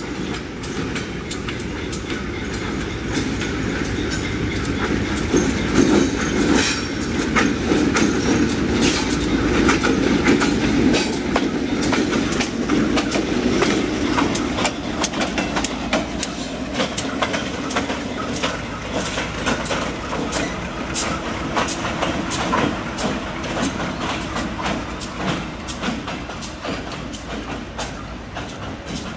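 GE B23-7 diesel-electric locomotive running past at close range, its diesel rumbling under a steady clicking of wheels over rail joints. It is loudest as the locomotive passes near the middle, then eases off as it moves away.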